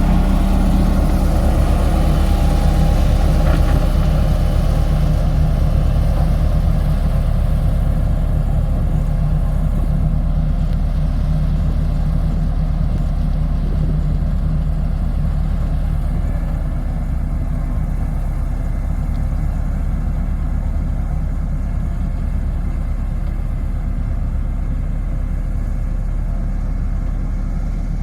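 Diesel engine of heavy road-construction machinery running steadily with a low, even drone, gradually getting a little quieter.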